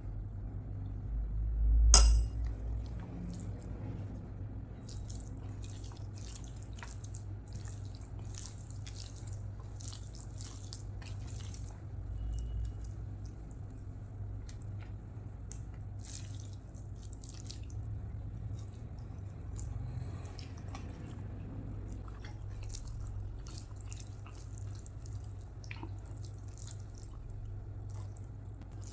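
Close-up wet eating sounds of rice with curry and rasam: many short, scattered clicks and smacks of chewing and mouth noises. One sharp click comes about two seconds in, and a steady low hum runs underneath.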